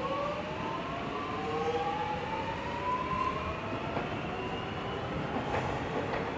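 Three-car electric suburban train pulling away, its traction motors giving a rising whine in several pitches that climbs steadily and fades out after about five seconds, over a steady running rumble.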